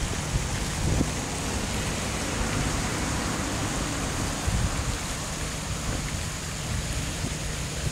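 Steady rushing hiss of water splashing in an outdoor fountain, with a low rumble underneath.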